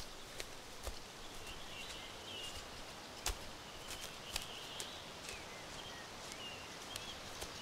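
Footsteps through ferns and leaf litter on a forest floor, with irregular sharp cracks underfoot, the loudest about three seconds in. Birds chirp throughout over a steady hiss.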